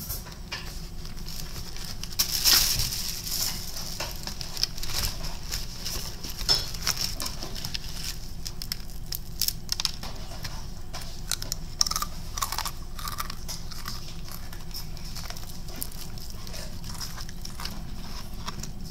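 Eating crispy fried chicken: irregular crunching and crackling of the breading with chewing and the tearing of meat, loudest in a burst of crunching about two and a half seconds in.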